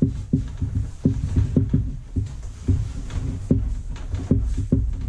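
Hard shelf panels of a pop-up fabric storage organiser being worked into place: an irregular run of short, dull clunks and knocks as the boards bump against the frame and each other.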